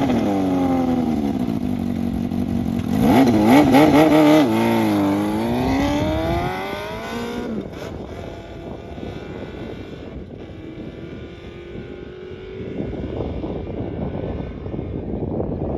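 Yamaha XJR400's air-cooled inline-four engine revving and accelerating, its pitch climbing and dropping with the gear changes, then fading out about halfway through. After that an even rushing noise is left, which grows louder near the end.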